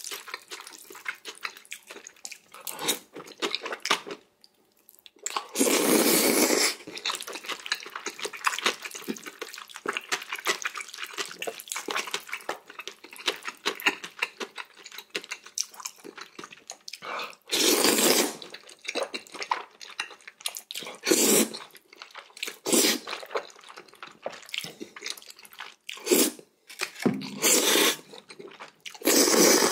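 Close-up eating sounds of a person eating noodles: several loud, wet slurps of about a second each, with steady chewing and lip-smacking clicks in between.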